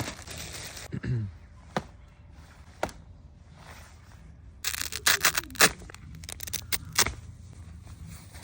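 Handling noises from unboxing goalkeeper gloves and their packaging: scattered scrapes and clicks, with a dense run of sharp crackles about five seconds in and another sharp crackle near seven seconds.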